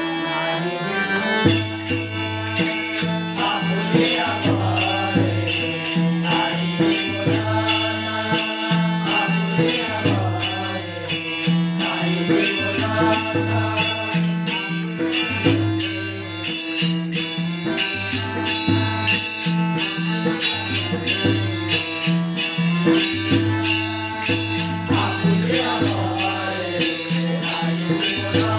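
Warkari bhajan music: small hand cymbals struck in a steady, even rhythm over low drum strokes and a steady held tone, with a voice singing. The full ensemble comes in about a second and a half in.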